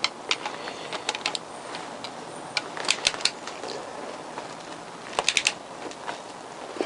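Ratchet head of a torque wrench clicking in short runs of quick clicks as crankcase bolts are tightened, with a pause of a second or two between runs.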